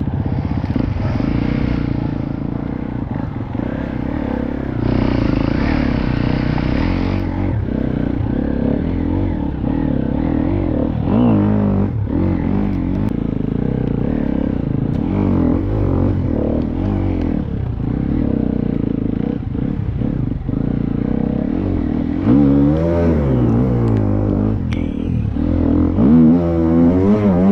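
TM 300 enduro motorcycle engine running under load, revved hard again and again with rising and falling pitch, the sharpest blips coming near the end.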